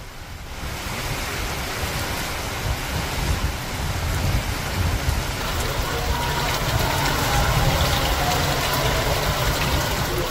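Heavy rain pouring down onto waterlogged ground: a steady hiss of the downpour with a low rumble underneath, swelling in the first second or so.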